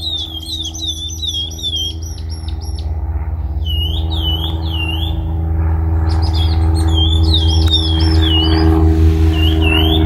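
A light aircraft flying overhead, its engine drone growing steadily louder. Small birds chirp in short runs of quick repeated notes over it.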